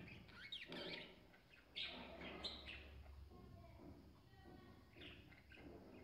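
Faint budgerigar chirps: scattered short, high calls, a few clustered about a second in and again around two seconds in.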